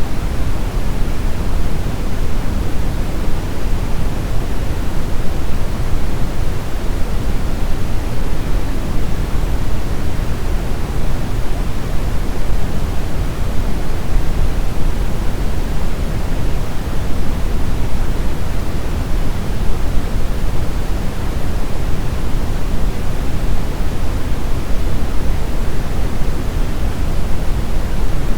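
Synthetic brown noise: a steady, even rumbling hiss with most of its weight in the low end, unchanging and without any events.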